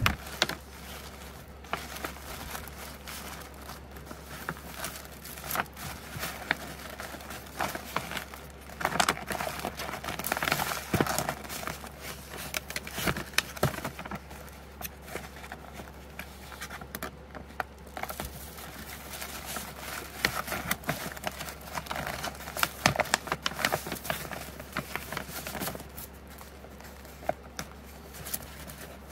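Kraft paper mailing envelope being handled: paper rustling and crinkling with scattered small taps and clicks as it is smoothed, opened and its flap worked, with louder stretches about a third of the way in and again about two thirds in.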